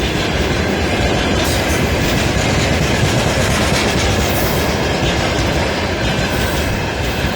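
Freight train running past at close range: a loud, steady rush of wheels on the rails.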